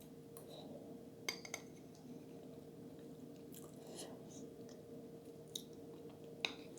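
Quiet chewing of a mouthful of lasagna, with a few sharp clicks, two close together about a second in and two more near the end, the last the loudest. A faint steady hum runs underneath.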